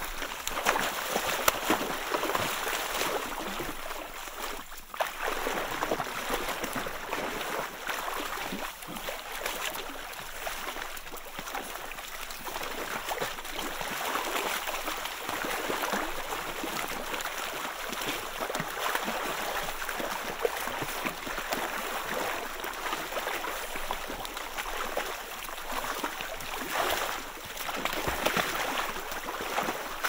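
Emperor penguins splashing in and out of a water hole in sea ice: continuous gurgling water with many small splashes and drips.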